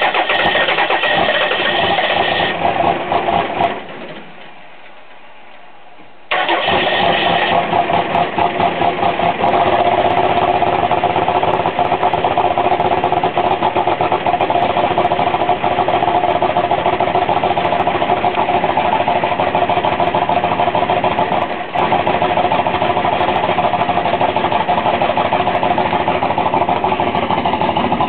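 1992 Dodge Cummins 5.9-litre inline-six diesel being cold-started with no grid heater and no block heater: the starter cranks for about four seconds without a start and stops. After a pause of about two seconds it cranks again, the engine catches and runs on steadily.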